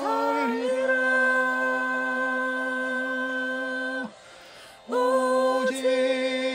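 Singing of a Korean worship song: a long note held steady for about four seconds, a brief break, then the voice comes back in with more long held notes.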